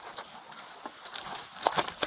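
Irregular light taps, clicks and rustles, like footsteps and the handling of objects, with one sharper click about two-thirds of the way through.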